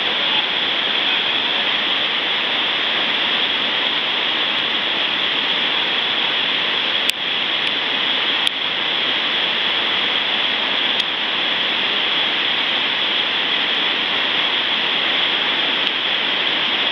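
Steady rush of white water churning in the stopper below a river weir, with a few faint ticks scattered through it.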